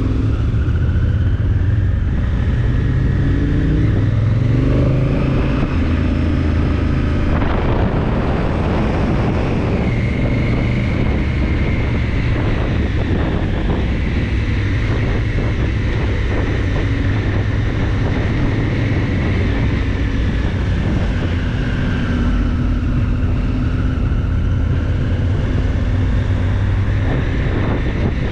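Honda Africa Twin CRF1000's parallel-twin engine running while the bike is ridden, its pitch rising and falling as it speeds up and slows. Wind rushes over the microphone.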